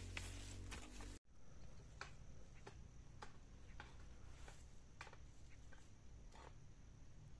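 A long-handled hoe striking dry, stony soil in a few sharp chops, cutting off suddenly about a second in. Afterwards only faint scattered ticks and clicks over a thin, steady high tone.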